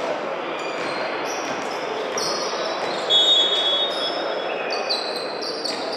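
Volleyball match play: shoes squeaking on the indoor court floor in many short, high squeaks, over a steady crowd murmur in a large hall, with a louder high squeal about three seconds in.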